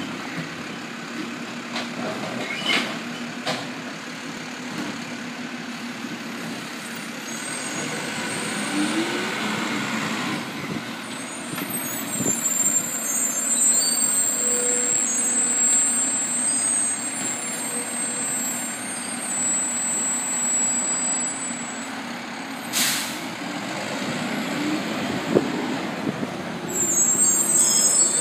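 Automated side-loader refuse trucks running at the curb: a steady engine rumble with short rising hydraulic whines as the arms work the bins, and one sharp air-brake hiss late on.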